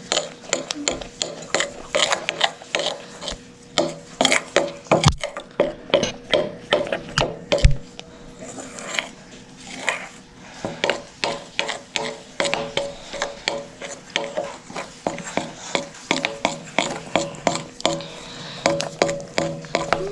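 Spoon scraping and knocking against a bowl while stirring cornstarch into melted fruit snacks, in quick repeated strokes of about two or three a second.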